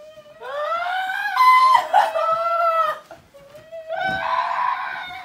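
Several people wailing in high, drawn-out voices that overlap and waver in pitch, as a spooky chant. The wailing swells about half a second in, breaks off briefly about three seconds in, then starts again.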